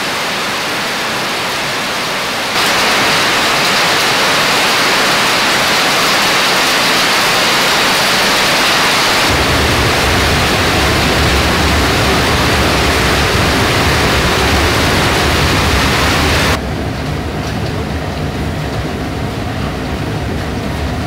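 Steady rain falling, a hiss that gets heavier about two and a half seconds in. About nine seconds in, the steady low rumble of a firebrick forge heating a knife blade joins it, and from about sixteen seconds the rain hiss drops away, leaving the forge's rumble.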